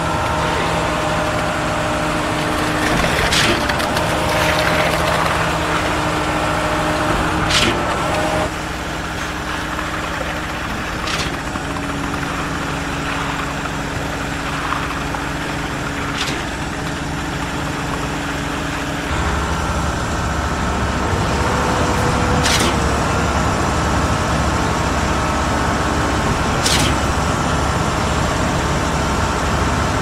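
Ready-mix concrete truck's engine running hard to turn the drum while it discharges concrete down the chute. The engine note shifts a few times, dropping at about 8 seconds in, with a deeper rumble from about two-thirds of the way through. A few sharp knocks or clicks are heard over it.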